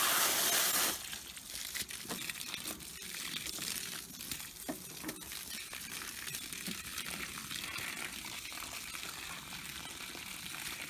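Water spraying from a hose onto a steel mower deck, washing it clean: a loud hiss for about the first second, then a steadier, quieter spray with scattered clicks.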